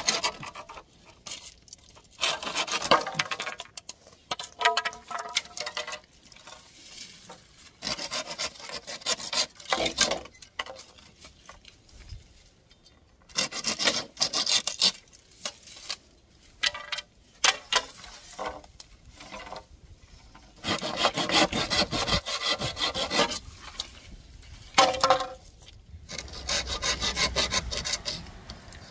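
Hand saw cutting through a bamboo pole: runs of quick back-and-forth scraping strokes, each run lasting a second or two, with short pauses between them.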